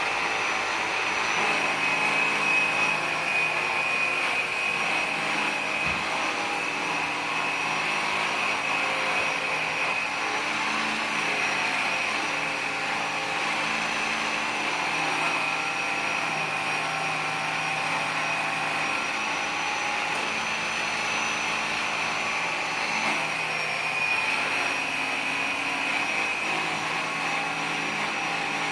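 Vacuum cleaner running steadily, a constant motor whine over a rush of air.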